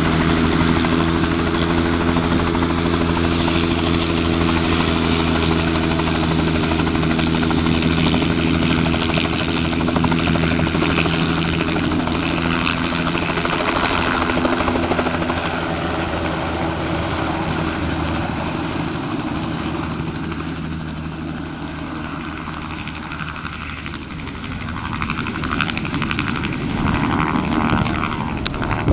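Bell 206 JetRanger helicopter, its single turboshaft engine and rotor running for takeoff: a steady rotor beat with a thin high turbine whine while on the ground, then lifting off and flying away. The sound fades after about twenty seconds, then swells again near the end.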